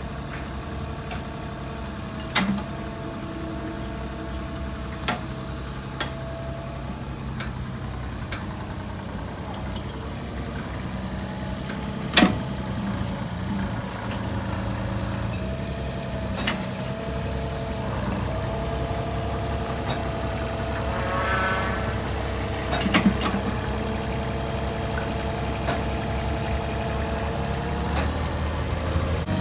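Cat 303SR mini excavator's diesel engine running steadily, with a whine that shifts in pitch as the machine works. Several sharp knocks or clanks sound over it.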